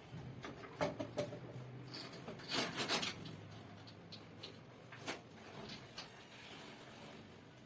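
Short scraping and rubbing of plastic against metal as a PPR pipe end is worked onto the heating socket of a pipe-fusion welding machine. There are a few brief scrapes and knocks, the longest about two and a half to three seconds in.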